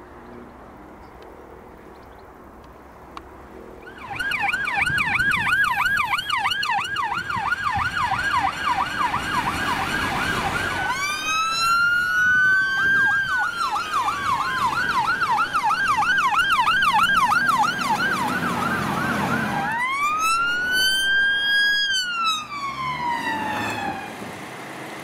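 Emergency vehicle siren on a fast yelp, starting about four seconds in after a faint outdoor background, with a slower rising-then-falling wail cutting across it twice before it fades near the end.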